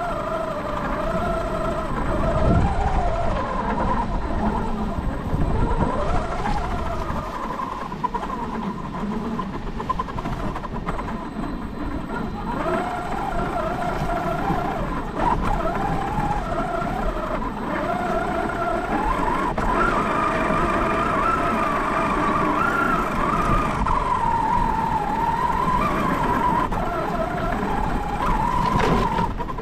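Large electric RC monster truck driving through snow, heard from a camera mounted on the truck: a motor and gear whine that rises and falls with the throttle, over the rumble of the tyres.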